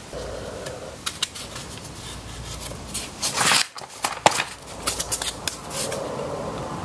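Scattered light clicks, taps and scrapes of hand work on a glued joint held in metal clamps, with a thin wooden stick scraping off squeezed-out wood glue. The sounds come thickest a little past the middle.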